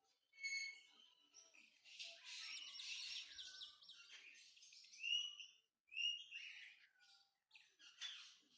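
Myna calling: a short call, then a dense run of rapid chattering notes, then several separate curving calls.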